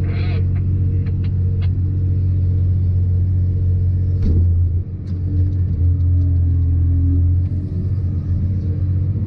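Caterpillar wheel loader's diesel engine running steadily under load, a loud low drone heard from inside the cab. About four seconds in the note briefly dips and sweeps, and a higher steady tone rides on top for a few seconds after.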